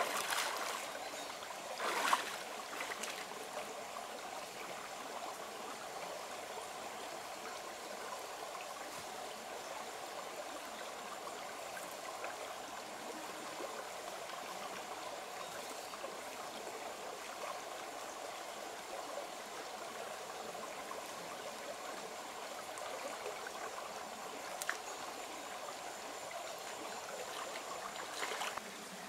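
A small stream running over rocks, a steady rush of water. There is a short, sharper noise about two seconds in and two fainter ones near the end.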